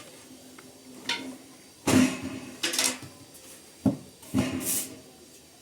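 Cookware and utensils being handled: about five short clatters and scrapes, the loudest about two seconds in, over a faint steady hum.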